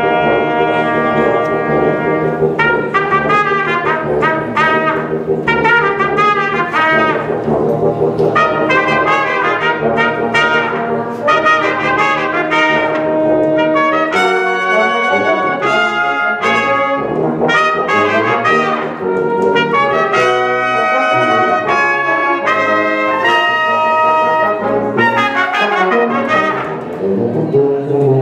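Small brass ensemble of trumpets, euphonium and trombones playing a piece together in harmony. The low parts hold sustained notes through the first half, then drop out about halfway through, leaving a lighter texture led by the higher brass.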